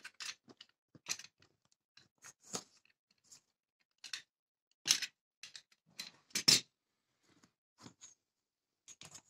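Utility knife cutting through a linoleum patch and the flooring beneath it in short, separate strokes, each a brief scratch or click. The two loudest come about five and six and a half seconds in.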